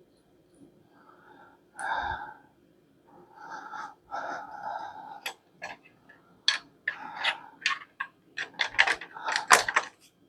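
Hands handling metal and plastic parts of a bike repair stand during assembly: a few rustling scrapes, then a quick run of sharp clicks and knocks, loudest near the end.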